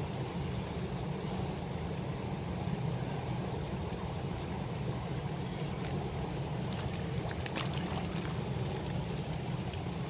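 Steady rush of flowing river water close to the microphone, with a few light clicks and splashes about seven seconds in from hands working in the water.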